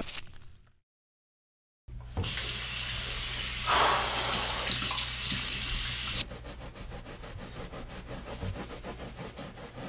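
Bathroom sink faucet running hard into the basin, starting about two seconds in and cutting off suddenly about four seconds later. A quieter low, steady hum remains after it.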